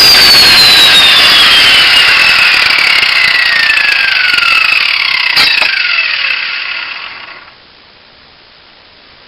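Angle grinder switched off and spinning down: its high whine falls steadily in pitch over about six seconds while the noise fades away, with a single sharp knock about five seconds in.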